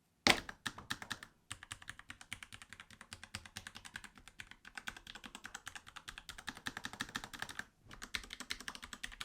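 Fast typing on a Kemove K68 65% mechanical keyboard with Cherry MX Red switches and low-profile keycaps: a quick, dense stream of key clicks and clacks, with a short pause near the end.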